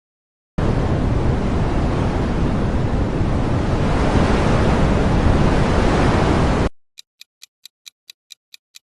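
Strong wind blowing: a loud, steady rushing with a deep rumble for about six seconds, stopping abruptly. After it a quiz countdown clock ticks quickly, about five ticks a second.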